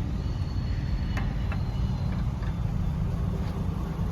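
A few light clicks and clinks of hand tools at work on a car's rear brake, over a steady low rumble.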